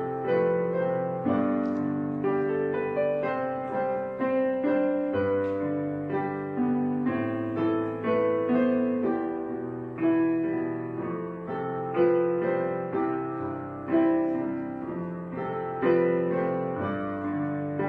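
Background piano music: a slow, gentle piece of struck chords and melody notes that ring and fade between strikes, with a stronger accent about every two seconds.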